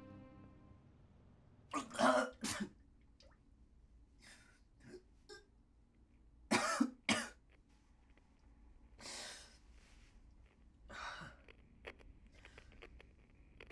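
A person coughing: two short coughs about two seconds in and two more about seven seconds in, followed by fainter breathy exhalations.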